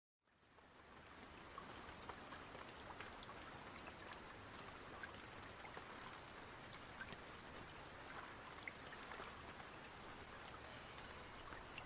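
Faint, steady rain with scattered small drop ticks, fading in from silence at the start.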